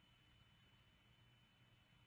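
Near silence: faint background hiss and low hum, with a thin steady high tone.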